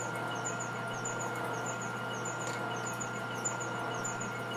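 Milling machine taking a deep conventional-milling cut with a 7/8-inch end mill: a steady machine hum with a thin high tone and a faint high chirp repeating about twice a second. The spindle is turning slower than the 400–500 RPM this cutter should run.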